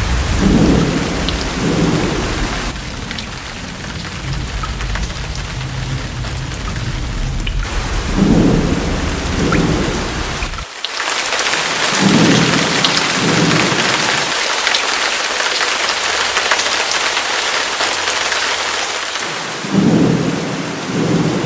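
Heavy rain hissing steadily, with rolls of thunder rumbling about four times: near the start, around 8 seconds, around 12 seconds and near the end. The rain grows heavier about halfway through.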